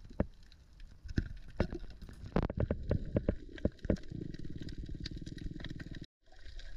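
Underwater sound picked up by a diver's camera: scattered sharp clicks and knocks for about four seconds, then a dense bubbling rumble of exhaled air for about two seconds. It cuts off suddenly just after six seconds.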